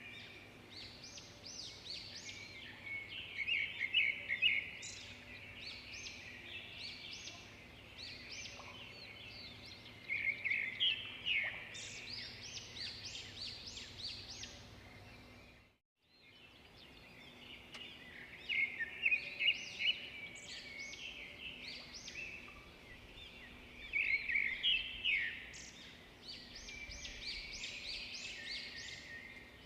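Birds chirping and singing in quick trills, with a brief gap of silence about halfway through.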